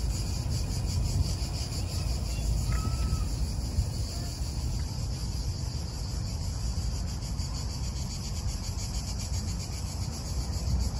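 Cicadas singing: a steady, high, rapidly pulsing buzz, over a low background rumble.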